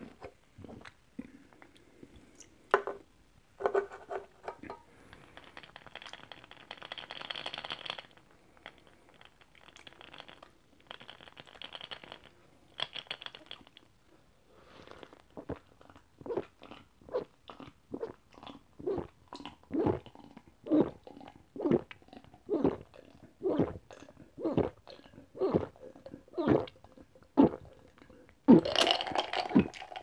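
A person drinking iced McCol barley soda from a glass jar: soft hissy sipping in the first half, then a long run of gulps, about one every 0.7 seconds. A louder, sharper sound comes near the end as the jar is lowered.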